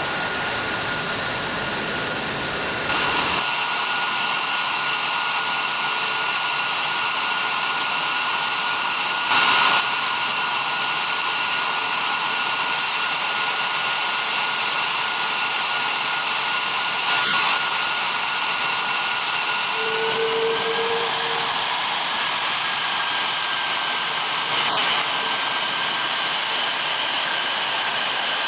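Fighter jet engine running on the ground with a steady high whine, its pitch rising slightly about two-thirds of the way through. Three short, sharp knocks break in, near a third of the way, just past halfway and near the end.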